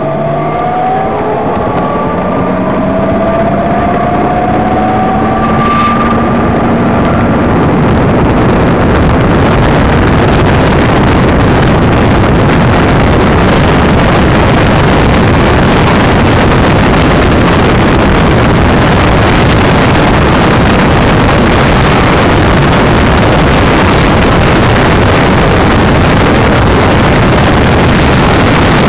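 Greenpower electric race car accelerating from the start. Its electric motor and chain drive whine, rising in pitch over the first several seconds. By about eight seconds in this is buried under a loud, steady rush of wind and road noise on the car-mounted microphone.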